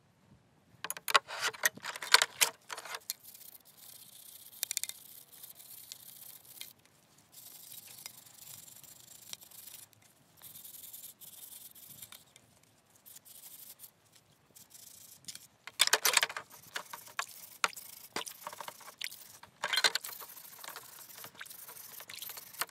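Rusty steel machine parts handled in a plastic tub of liquid: clinks and rattles as the metal pieces knock against each other and the tub, in three bursts of clatter, about a second in, around the middle-late part and again shortly after, with quieter splashing and rustling between.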